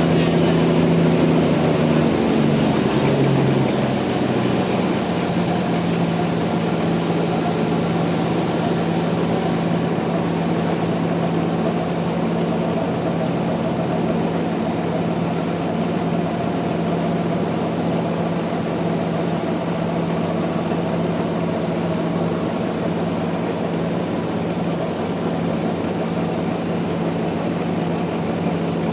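Sawmill machinery running with a steady mechanical hum, a little louder for the first few seconds, then even.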